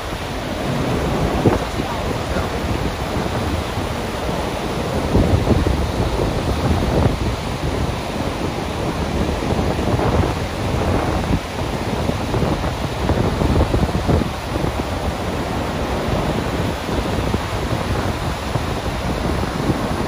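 Steady, loud rush of a large waterfall heard from its brink, the heavy water falling and breaking into spray. Wind buffets the microphone at times, adding uneven low swells.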